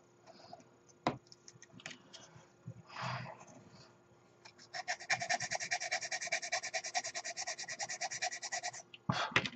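Quick, even back-and-forth strokes of a file or sanding stick rasping a plastic model-kit part, about ten strokes a second for some four seconds, to ease a poor fit. A sharp click comes about a second in, and a short knock near the end.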